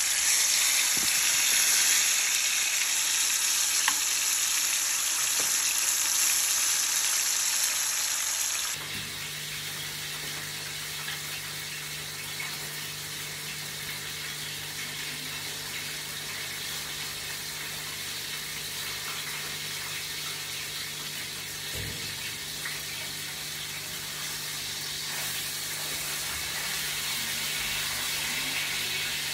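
Whole grunt fish frying in hot oil and garlic in a pan, a loud sizzle. About nine seconds in it drops suddenly to a quieter sizzle over a low steady hum.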